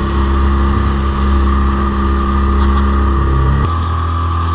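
Outboard motor on a small boat running steadily under way, a constant drone with water and wind noise. The sound changes abruptly about three and a half seconds in, to a slightly different steady drone.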